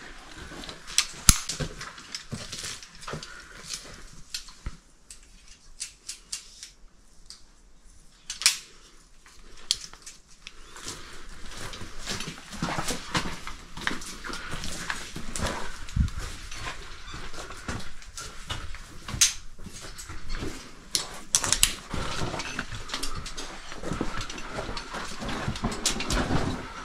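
Caving hardware clicking and clinking as carabiners are handled at a harness. From about eleven seconds in come scuffing, rustling and clinking as a caver scrambles over rock.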